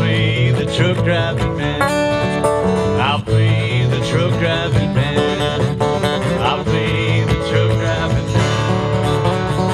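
Two acoustic guitars playing an up-tempo country tune in an instrumental break, one picking a lead line over the other's rhythm.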